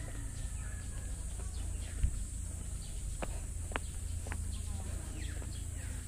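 Outdoor park ambience: birds chirping in short falling calls over a steady high hiss and a low rumble, with scattered sharp clicks and one louder thump about two seconds in.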